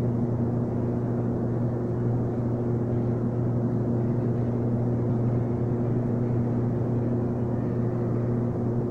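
Steady low hum of a metro station hall, with a few held low tones over an even rushing noise.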